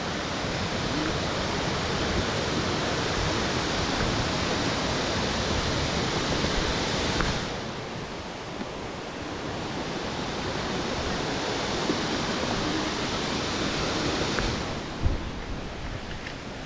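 Steady rushing of a waterfall. The hiss drops back a little about halfway through and again near the end, and a single short knock sounds shortly before the end.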